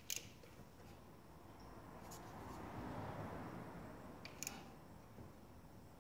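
Faint handling noises of gloved hands working on parts in a car's engine bay: three short sharp clicks about two seconds apart, with a soft rustle that swells in the middle.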